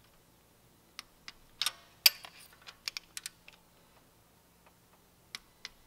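Hand torque wrench and sockets working the camshaft cap bolts on a Honda 2.4 engine: sharp metallic clicks and taps at irregular intervals, bunched around two to three seconds in, the loudest about two seconds in. A torque wrench's click is the sign that a bolt has reached its set torque, here 16 ft-lb.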